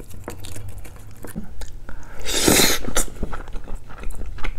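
Close-up chewing of a mouthful of tomato spaghetti: soft wet clicks and smacks of the mouth, with a louder half-second rush of noise about two and a half seconds in.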